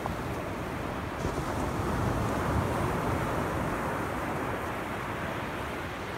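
Ocean surf washing onto the beach, with wind rushing on the microphone; the wash swells a little about two seconds in.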